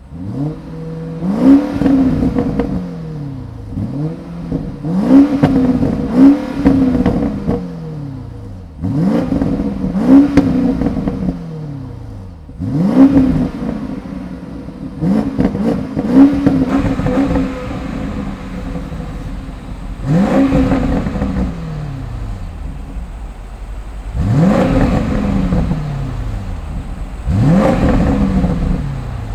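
2021 Alpina XB7's V8 with quad exhaust, stationary, being revved in repeated quick blips: each rev climbs sharply and falls back to a steady idle, some in close pairs.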